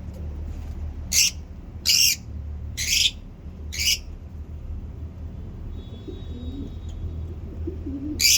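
Lovebirds calling: four loud, shrill chirps about a second apart, then one more near the end, over a steady low hum.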